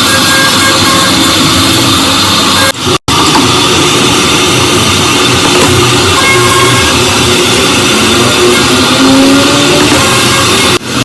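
Loud background rock music with guitar and drums. It cuts out abruptly for an instant about three seconds in.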